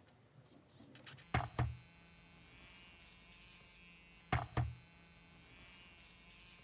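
A small DC motor, repaired and rewound, starts up and runs with a steady, shaver-like buzz. Two quick double knocks come about a second in and again about four seconds in.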